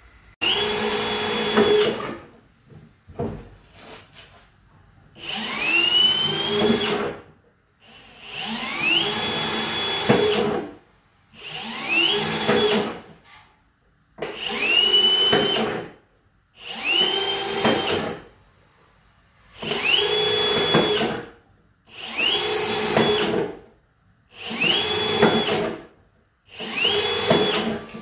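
Cordless drill boring holes through a thin plastic 5-litre bottle in short runs of a second or two, about ten in all. Each run starts with a rising motor whine that levels off, then stops.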